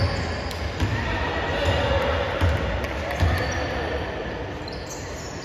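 A basketball bouncing on the gym floor: a handful of irregular thumps over the first three seconds or so, with faint voices in the hall.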